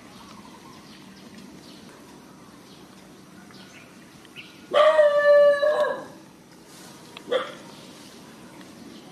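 An animal calling: one loud, pitched, drawn-out cry lasting just over a second about halfway through, then a short second cry about two seconds later.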